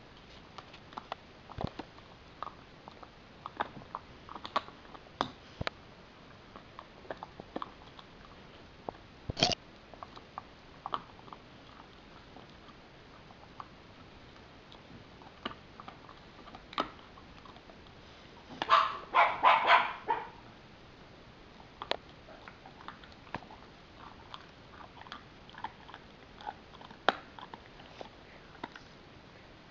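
Husky chewing a rib bone: irregular sharp clicks and cracks of teeth on bone, with a louder cluster of cracks about two-thirds of the way through.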